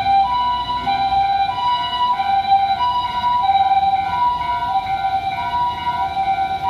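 Japanese ambulance siren sounding its two-tone "pee-paw" call, a higher and a lower tone taking turns about every two-thirds of a second, over low road-traffic rumble.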